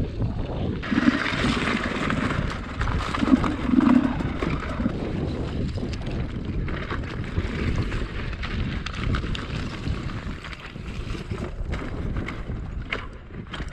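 Enduro dirt bike engine running at low speed over rough rocky ground, swelling briefly a couple of times in the first four seconds as the throttle is worked, with wind buffeting the microphone.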